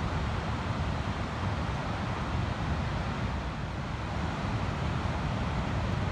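Ocean surf breaking along a sandy beach: a steady, unbroken rush of waves with a strong low rumble.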